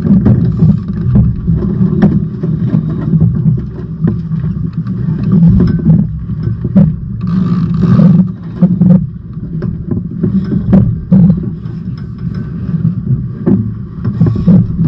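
Wind buffeting the microphone on the foredeck of a sailing trimaran: a loud, low, gusting rumble, with scattered knocks and a brief louder hiss about eight seconds in.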